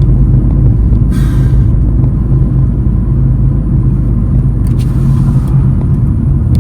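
Steady low rumble of a car driving, heard from inside the cabin: engine and road noise, with a brief hiss about a second in and again near five seconds.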